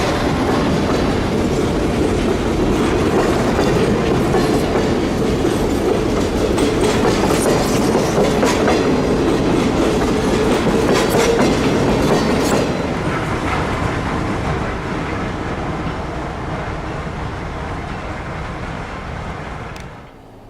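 Nickel Plate Express excursion train rolling past, its wheels clicking over the rail joints. The noise fades after about twelve seconds as the train moves away, then cuts off sharply near the end.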